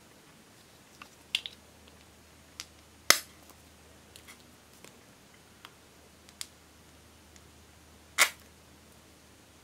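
Sharp plastic clicks and ticks of a glitter glue tube and its cap being handled and squeezed: scattered light ticks, with one loud click about three seconds in and a slightly longer, loud one near the end.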